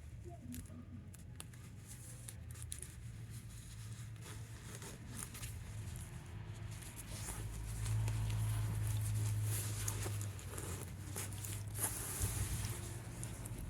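A zipper and its fabric handled by hand, giving scattered light clicks and rustling over a low steady hum. The hum grows louder about eight seconds in.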